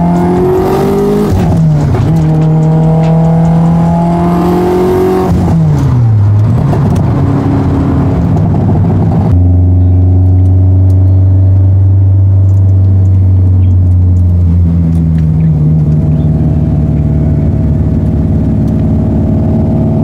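Turbocharged car engine accelerating hard with a turbo whistle rising alongside it. The pitch climbs, drops at a gear change about a second and a half in, climbs again and falls away around six seconds. For the rest of the time the engine holds a steady low drone at cruising speed.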